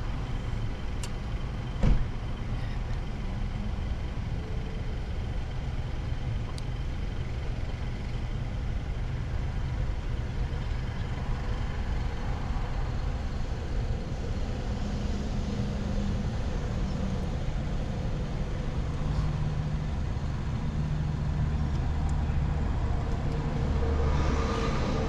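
Car engine idling steadily, heard from inside the cabin, with one sharp click about two seconds in and the hum growing a little louder near the end.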